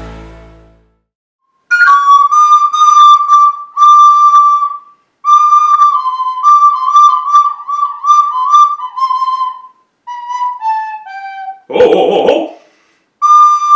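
Closing music fades out, then a soprano recorder plays short halting phrases of single notes, mostly stepping downward, with pauses between phrases. A brief burst of noise, like a breath or laugh, cuts in a second or two before the end.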